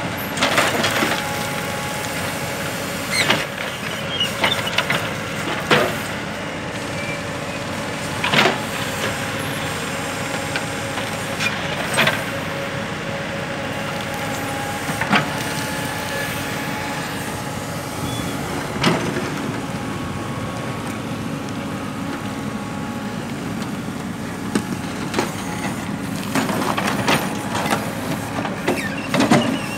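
Hidromek backhoe loader's diesel engine running steadily while its rear bucket digs into broken asphalt. Sharp knocks and cracks of asphalt chunks every few seconds, bunching together near the end.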